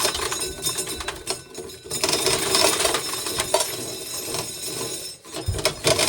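Hand-turned corn sheller running, a fast continuous clatter as an ear of corn is shelled and the kernels rattle off the cob.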